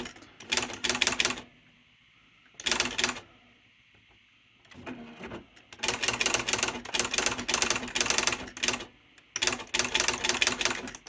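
Smith Corona Spell Right III XD 8000 electric typewriter typing a sentence: rapid runs of sharp printing clacks in bursts, word by word, with short pauses between. The longest runs come in the second half.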